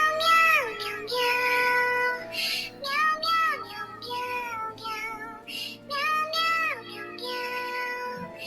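Music with a high, child-like singing voice holding and sliding between melodic notes in short phrases over a soft steady accompaniment.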